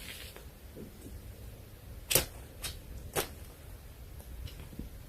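A few sharp clicks or knocks over low room noise. The three loudest come in quick succession around the middle, about half a second apart.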